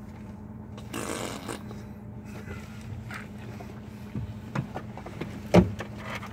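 Steady low hum of a car idling, heard from inside the cabin, with a rustle about a second in and a few short knocks, the loudest a little before the end.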